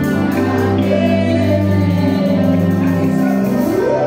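Live gospel music with singing over instrumental backing, the notes held long, with a rising slide near the end.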